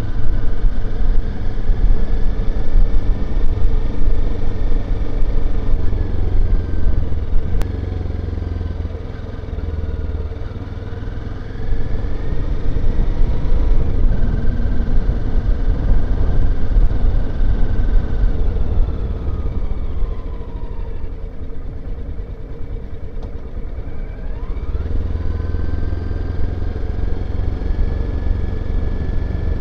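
Motorcycle engine running steadily under way, its pitch following the throttle: it falls off about twenty seconds in and climbs again about five seconds later, over a heavy low rumble.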